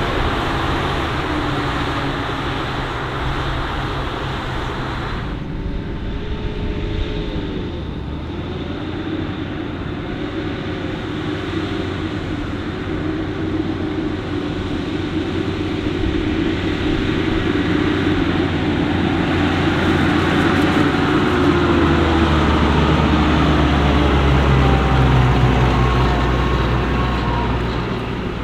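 Diesel engines of farm machinery at a maize silage harvest running, with the engine pitch shifting up and down. The sound changes abruptly about five seconds in, then a machine grows louder, loudest about 25 seconds in, and eases off near the end.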